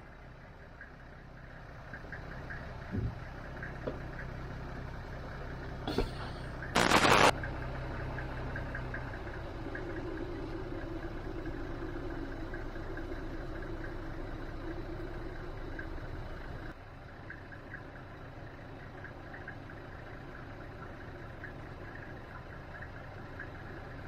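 Safari vehicle's engine running steadily, with a few knocks and a loud short burst of noise about seven seconds in. A humming tone rises over the rumble for several seconds and then stops abruptly.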